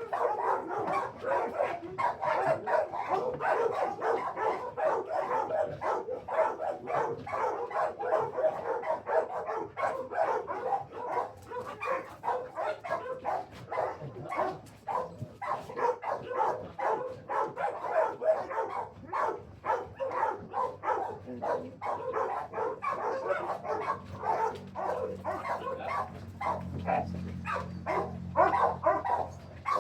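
Many kennel dogs barking together in a dense, continuous, overlapping chorus. A low steady hum comes in about three-quarters of the way through.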